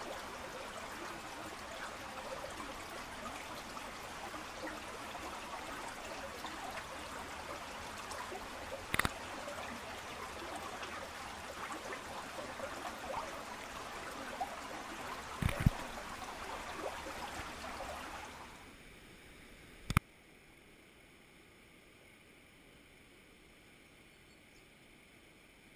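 Mountain stream running over rocks and a small rapid, a steady rush of water, with a few sharp knocks about 9 and 15 seconds in. About 18 seconds in the water sound drops away to a faint hiss.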